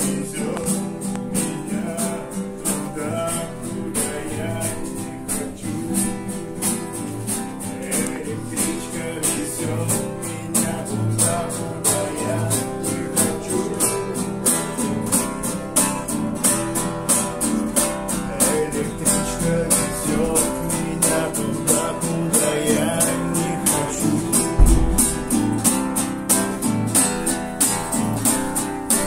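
Two acoustic guitars strummed in a steady rhythm, accompanying a man singing a song. There is a single low bump about 25 seconds in.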